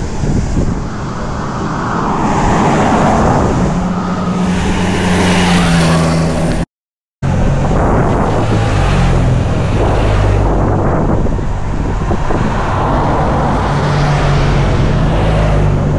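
Cars passing by one after another, engine and tyre noise swelling and fading as each goes past. The sound cuts out completely for about half a second some seven seconds in.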